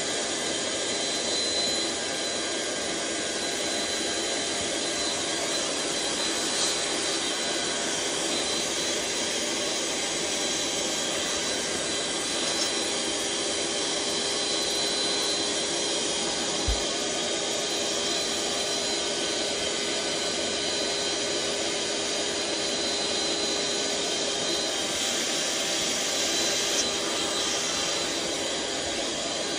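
Electric air pump running steadily, blowing air through a hose into the valve of a large vinyl inflatable as it fills: a constant whooshing motor noise with a steady whine.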